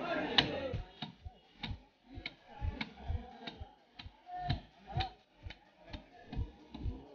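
Rhythmic chopping knocks, about two a second, each with a dull thud: a blade chopping through a boal fish.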